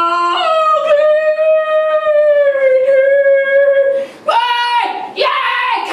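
A woman singing on stage into a microphone. She holds one long high note for about three and a half seconds, then sings two short, higher notes near the end.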